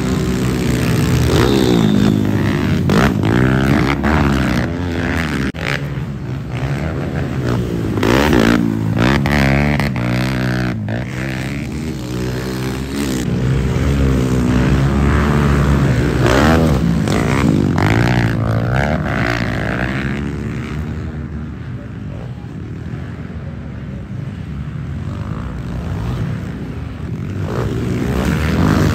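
Several pit bikes racing on a dirt track, their small engines revving hard and easing off over and over, the pitch climbing and dropping in repeated waves.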